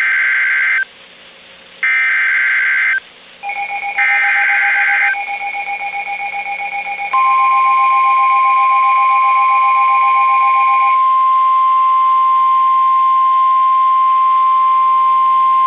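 NOAA Weather Radio SAME alert header: three short bursts of screeching data tones, about a second each with a second's gap between them. A pulsing electronic alarm beep follows. About seven seconds in, the steady 1050 Hz weather radio warning alarm tone starts, the signal that a warning follows.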